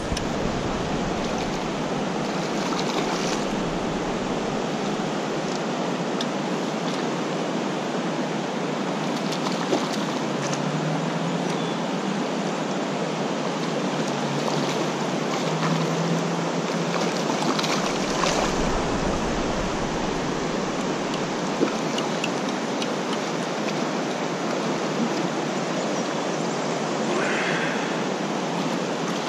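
Fast creek current rushing over riffles: a steady, even rush of water, with a few faint clicks.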